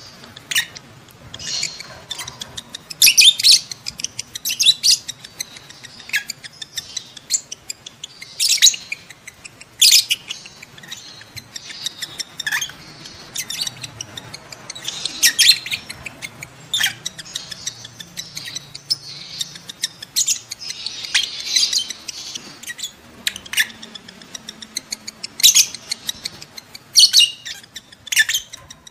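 Lovebirds in breeding condition giving mating calls: rapid, shrill chirps and squawks in irregular bursts.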